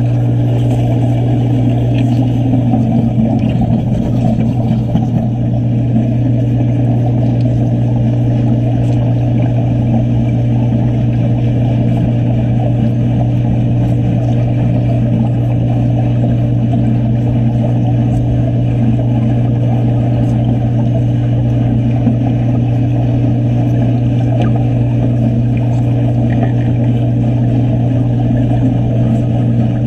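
A machine running with a steady low drone, heard underwater, unchanged throughout.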